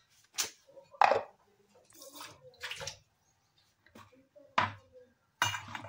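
Steel kitchenware being handled on a counter: a steel plate and a mixer-grinder jar are moved and set down. It comes as a string of short knocks and scrapes, the loudest about a second in.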